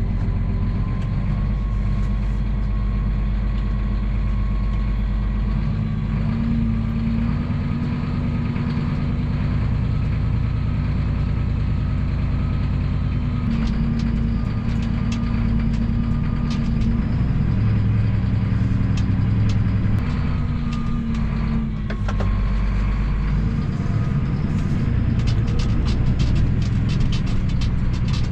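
A tractor's diesel engine running steadily, with a high whine held over it; the engine note shifts slightly about six seconds in and again a little past twenty seconds. A run of sharp clicks comes near the end.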